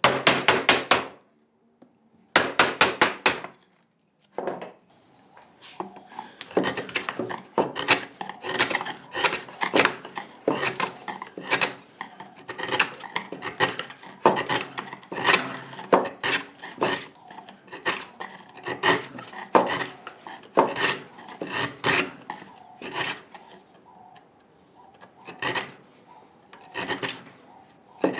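Hand tool cutting into beech wood with repeated rasping strokes. Two quick flurries come first, then after a short pause a steady run of strokes, about one and a half a second. The strokes are cutting grooves for drawer guides into a cabinet frame.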